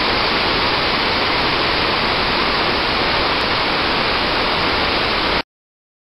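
Waterfall and whitewater river rushing: a steady, loud, even rush of falling water that cuts off suddenly near the end.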